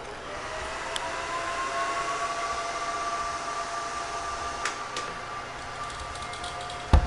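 IBM rack server powering on, its cooling fans spinning up: a whine and rush of air rise over the first couple of seconds, then settle into a steady high-speed whir. A sharp knock near the end.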